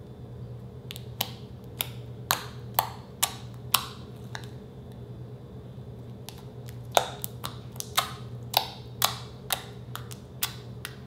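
Fingers poking into and pulling out of sticky slime, making a string of sharp wet pops and clicks about two a second, with a pause of a couple of seconds in the middle.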